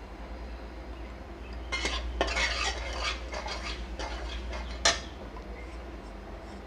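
Metal spatula stirring and scraping in a steel kadhai as turmeric and red chilli powder are mixed into hot oil and butter. The scraping starts about two seconds in, and there is a sharp clink of metal on metal near five seconds.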